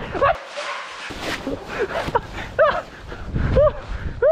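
Wind rushing over a head-worn microphone and scuffing as a person sprints and dives onto a plastic tarp. Four short yelping cries that rise and fall in pitch are heard during the dash and the landing.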